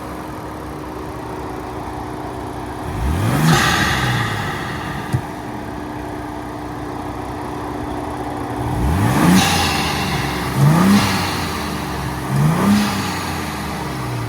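Ford Bronco Raptor's 3.0-litre twin-turbo EcoBoost V6 with an S&B cold air intake, idling and revved four times: two longer revs about three and nine seconds in, then two quick blips near the end, each with an intake hiss rising and falling with the revs. A single sharp click about five seconds in.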